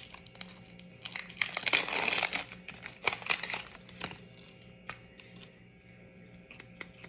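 Clear plastic syringe wrapper crinkling and tearing as it is opened, in a dense flurry between about one and two and a half seconds in. Scattered small clicks follow as the syringe and needle are handled.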